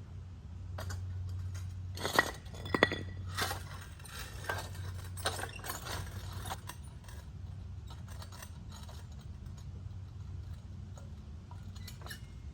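Hard clinks and knocks of concrete retaining-wall block pieces being handled, two sharp loud ones about two and three seconds in, then fainter scattered taps, over a steady low hum.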